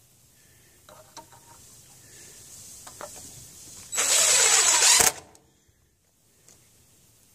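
DeWalt cordless driver running for about a second, driving a screw through a steel joist hanger into a wooden joist, and stopping with a sharp knock as the screw seats. A few light clicks come before it.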